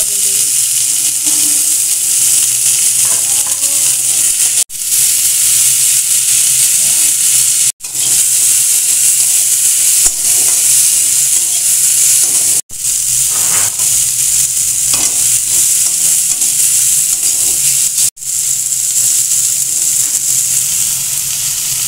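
Chopped tomatoes and peppers frying in hot oil in a kadai, a loud steady sizzle, stirred with a wooden spatula. The sizzle cuts out for an instant four times.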